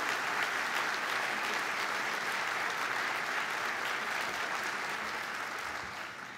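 Audience applauding steadily, fading out toward the end.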